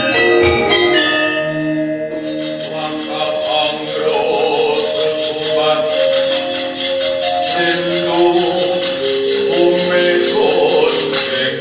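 Javanese gamelan music with ringing struck metal tones. About two seconds in, a fast, even metallic jingling rhythm joins and carries on over the melody.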